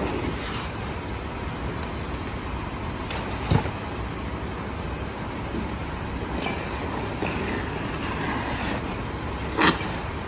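McNeilus rear-loader garbage truck's engine running steadily as trash bags are thrown into its rear hopper, with two sharp knocks, one about three and a half seconds in and a louder one near the end.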